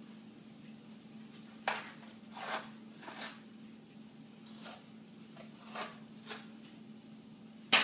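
White adhesive tape being pulled off its roll and wrapped around a SAM splint on the forearm, in about seven short rasping pulls. A sharp crack just before the end is the loudest sound.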